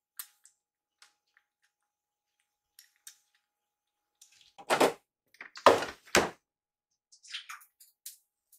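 Faint clicks of a kitten eating from a ceramic food bowl, then three loud knocks or thumps a little under half a second to a second apart, about halfway through.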